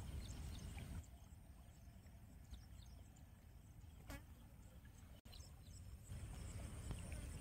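Faint outdoor ambience: a steady low rumble with faint, scattered high chirps and ticks.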